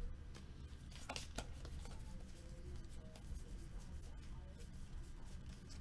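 Faint rustling and a few soft clicks of sports trading cards being slid and fanned through by hand.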